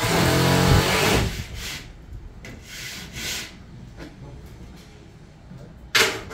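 Gypsum board being worked by hand with rough scraping strokes, the loudest in the first second and quieter ones after, then a short sharp knock near the end.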